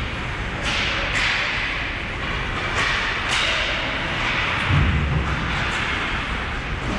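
Ice hockey game in play in an arena: a steady rink hiss with several sharp clacks of sticks and puck, and a dull thud, likely a body or puck against the boards, about five seconds in.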